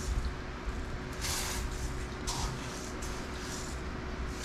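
Handling noise from containers being moved about on a low kitchen shelf: a few short scraping, rustling sounds over a steady low hum.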